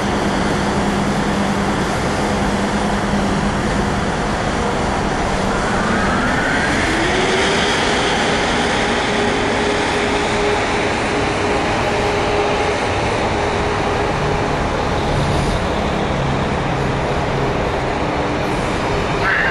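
Amtrak HHP-8 electric locomotive hauling Amfleet passenger coaches past, a steady rumble of wheels on rail. A whine rises in pitch about six seconds in and then holds steady.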